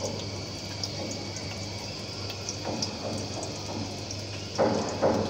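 Chopped onions and whole spices sizzling in hot oil in an aluminium pot, a steady frying hiss with faint crackles, and a couple of louder short bursts near the end.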